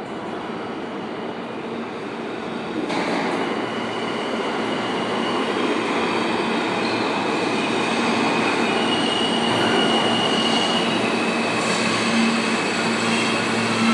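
New York City subway R train pulling into an underground station, its rumble growing steadily louder as it approaches and brakes. High wheel squeal rings over the middle and later part, with a low hum coming in near the end as the cars slow alongside the platform.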